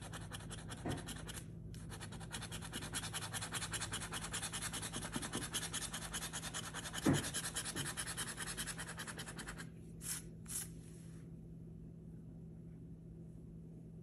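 A coin scraping the coating off a scratch-off lottery ticket in quick, rapid back-and-forth strokes, with a brief pause about a second and a half in. The scratching stops at about ten seconds and is followed by two short rasps.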